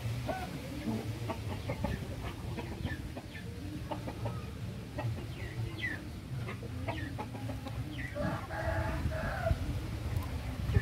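Poultry calling: a scatter of short chirps and clucks, with one longer call lasting about a second and a half about eight seconds in.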